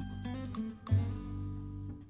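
Background music: soft plucked guitar over low bass notes, with a new bass note struck about a second in.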